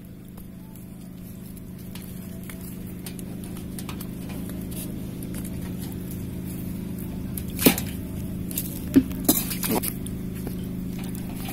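Raw beef leg being handled and pulled apart by hand over a steel plate, with soft wet squishing and a few sharp clicks about two-thirds of the way in, over a steady low hum.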